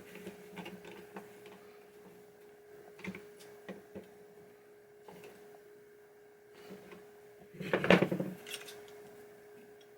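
Small clicks and taps of parts being handled and adjusted on a pinball drop target assembly, with a louder clatter about eight seconds in. A steady hum runs underneath.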